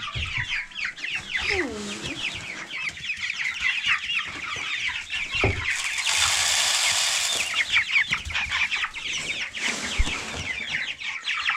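A flock of four-week-old Meat King broiler chicks peeping continuously, many short falling peeps overlapping. About six seconds in comes a rush of noise lasting about a second and a half, which fits feed being poured into their feeder.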